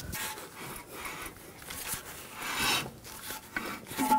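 Metal rasping and scraping strokes as the new CV axle's inner flange bolts are snugged down by hand, with one longer scraping stroke about two and a half seconds in and a sharp metallic click near the end.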